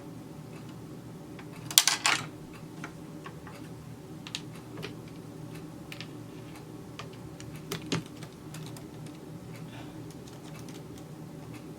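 Scattered small clicks and taps from handling parts on a Brother 1034D serger while a new lower knife is fitted, with a short clatter of several clicks about two seconds in and a few more near eight seconds.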